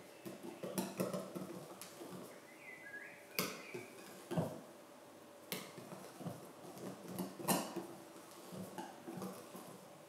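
Wire balloon whisk mixing thick cornmeal batter in a glass bowl: irregular sharp clinks of the metal wires against the glass, a few louder than the rest, over the softer noise of the stirring.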